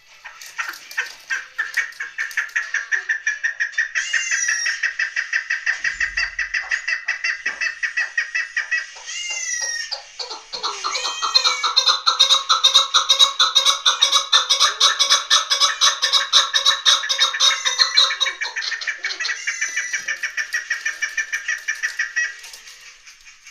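Chukar partridge calling: a long, fast run of repeated chuck notes, several a second. From about halfway through it grows louder, with a second, lower series of notes overlapping, before it stops near the end.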